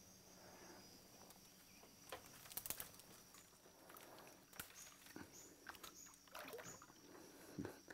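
Near silence broken by faint, scattered clicks and small splashes as submerged branches are pulled at by hand in the water beside a boat.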